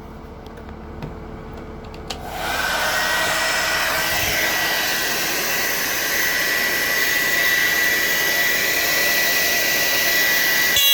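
Hand-held hair dryer switched on about two seconds in and running steadily: a loud rush of blown air with a thin, high motor whine over it.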